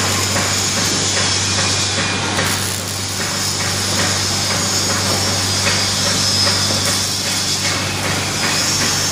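Robotic MIG welding arc on steel, crackling steadily and without a break, over a steady low hum.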